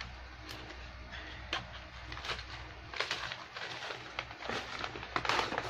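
Crunchy purple yam, banana and coconut fruit crisps being chewed: a run of sharp crackling crunches, denser and louder near the end.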